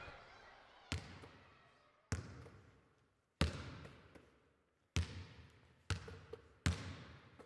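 Six sharp knocks at irregular intervals of about a second, each trailing off in a long echo.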